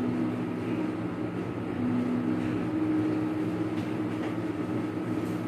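A steady low droning hum whose main tone steps slightly up and down in pitch a few times.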